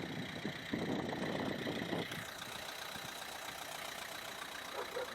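Renault Laguna's 1.5-litre eight-valve turbodiesel four-cylinder idling, louder and uneven for the first two seconds, then steady.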